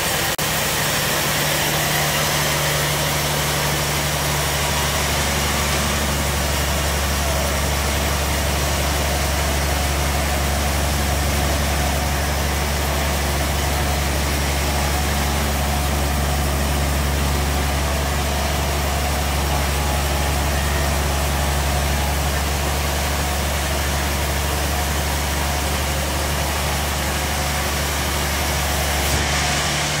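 Large sawmill bandsaw running and cutting through a big trembesi (rain tree) slab: a steady low machine hum under a continuous even hiss from the blade in the wood.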